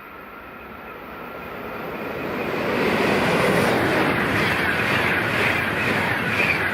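High-speed passenger train approaching and passing at speed on a Swiss line built for 200 km/h: a rushing noise that swells steadily for about three seconds, then stays loud with a regular pulsing about twice a second as the cars go by.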